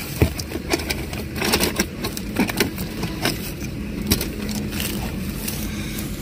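Handling noise from a taped wire harness being coiled by hand and rubbed against a rubber floor mat: scattered rustles and small clicks at irregular intervals over a faint steady hum.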